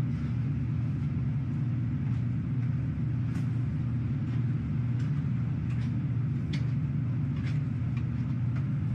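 Steady low machinery rumble and hum aboard a ship, with a few faint sharp clicks scattered through the middle.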